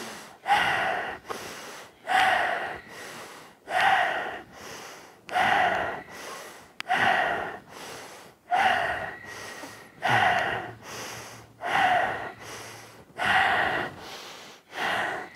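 Powered, audible yoga breathing: a strong breath about every one and a half seconds, with a softer breath between each.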